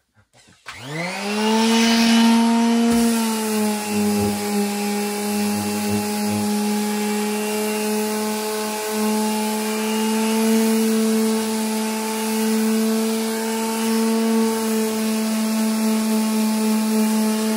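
Hercules 2.4-amp orbital quarter-sheet sander switching on about a second in and spinning up gradually over a second or so (its soft start), then running steadily while sanding a wooden board with 150-grit paper.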